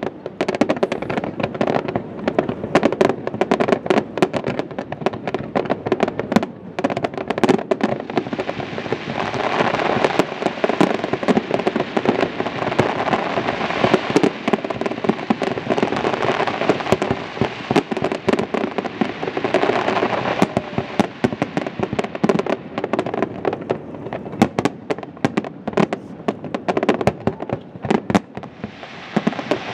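Fireworks display: bangs and crackles follow one another rapidly without pause. They merge into a dense, continuous crackle from about a third of the way in to about two thirds.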